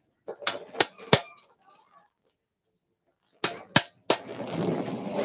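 Hammer striking a nail to punch holes in a thin metal sheet resting on a wooden board: sharp taps, three about a second in and three more after a pause of about two seconds.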